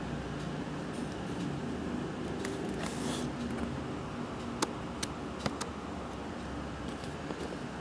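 Steady low background hum of the room, with a short brushing hiss about three seconds in and four light, sharp clicks a little past the middle, from fingers tapping and sliding on a smartphone's touchscreen.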